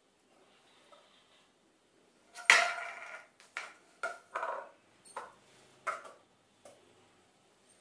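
A metal fork knocking and clinking against disposable cups and a wooden tabletop as the cups are lifted off a stack and set down one by one. There is one sharp clatter about two and a half seconds in, then a string of lighter knocks.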